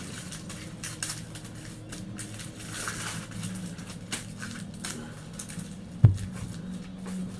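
Aluminum foil and tape crinkling and rustling as they are handled, with a sharp knock about six seconds in, over a steady low hum.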